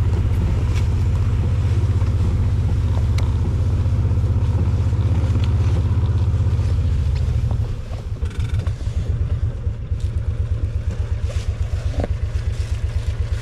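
Side-by-side utility vehicle's engine running steadily under way, then dropping to idle about two-thirds of the way through as the vehicle stops, idling with an even, rhythmic low throb.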